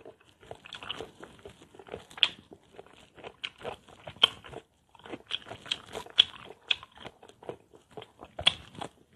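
A person biting into and chewing crisp unripe mango slices close to the microphone: irregular crunches, with a short pause about halfway through.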